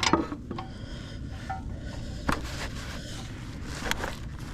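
A few sharp metallic clicks and knocks from a breaker bar and socket straining at a brake caliper bracket bolt, which is torqued to 129 lb-ft.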